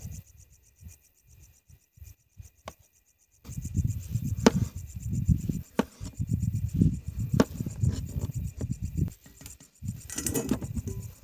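Kitchen knife chopping potatoes on a plastic cutting board on a folding camp table: a quick run of knocks with a few sharp clacks. Near the end, the chopped pieces are scraped off the board into a steel bowl.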